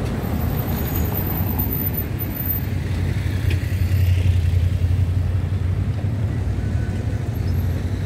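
Road traffic: a steady low rumble of passing cars, swelling slightly around the middle.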